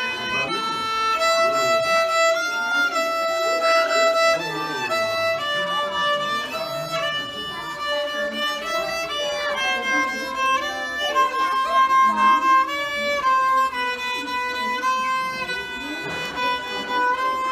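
Solo violin played with the bow: a slow melody of held notes that step up and down in pitch, each note lasting about half a second to a second and a half.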